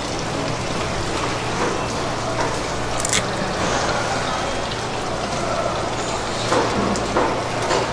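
Steady hiss of running water, like a tap left running, over a low hum, with a single sharp click about three seconds in.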